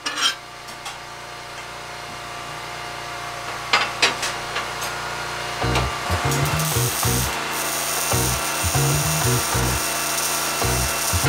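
A few sharp clinks of steel bar stock being handled and clamped on a metal workbench, then background music with a rhythmic bass beat comes in about halfway and carries on, with a high hiss over it.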